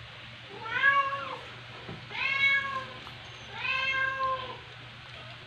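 Newborn border collie puppy crying: three short, high-pitched cries, each rising and then falling in pitch.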